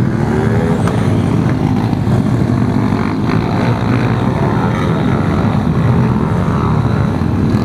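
Several pit bikes racing past together, their small single-cylinder engines buzzing and revving up and down as the riders work through the corners.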